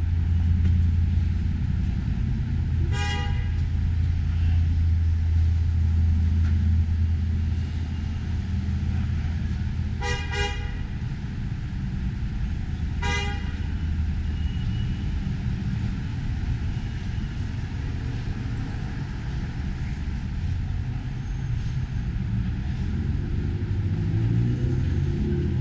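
Low, steady rumble of street traffic, broken by short car-horn toots: one about three seconds in, a quick double toot around ten seconds, and another a few seconds later.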